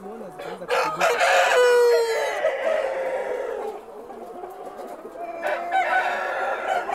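A rooster crowing loudly, starting about a second in and lasting a couple of seconds, with clucking around it and another call near the end.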